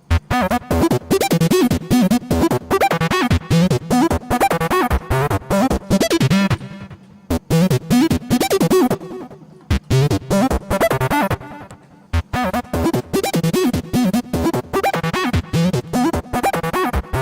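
Upbeat background music of quick, choppy notes, starting suddenly and breaking off briefly twice.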